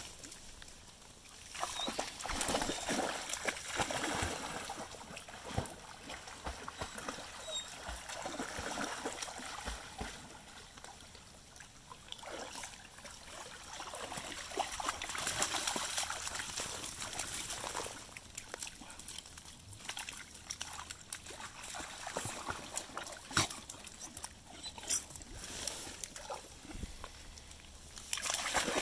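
Two dogs, a border collie mix and an Australian cattle dog, wading and splashing through shallow floodwater. The water sloshes and splashes in irregular bouts, with a few sharper splashes.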